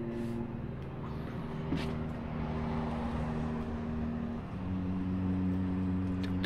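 Background music of sustained, droning chords; the chord shifts a little over four seconds in.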